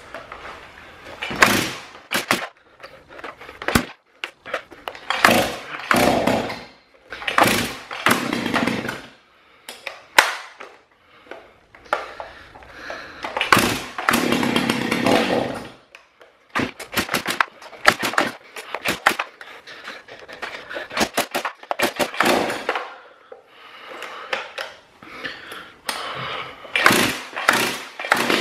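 Stihl MS290 chainsaw with an MS390 top-end kit being pull-started over and over: a dozen or so short bursts of recoil-starter pulls and cranking, with sharp clicks between them and one longer burst about halfway through, but the engine never settles into running. The owner suspects internal damage after the broken decompression valve's pin fell into the cylinder.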